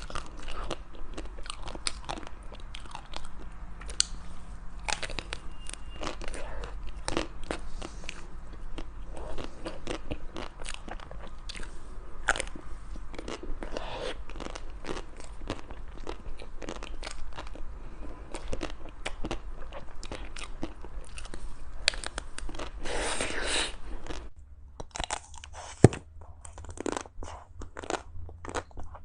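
Close-miked eating: a person biting and chewing crunchy ice cream, with many sharp crunches and crackles over a low steady hum. The background changes about 24 seconds in, and a single sharp click comes shortly after.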